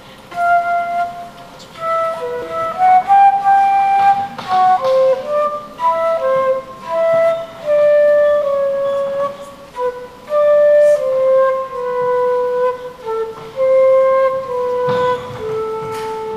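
Solo concert flute playing a slow, unaccompanied melody of held notes, one note at a time.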